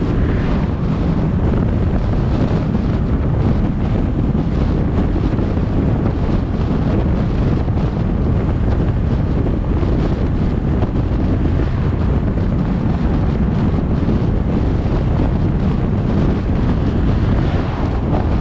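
Wind noise on a GoPro camera's microphone as the car drives along: a steady, deep rush that holds at one level without a break.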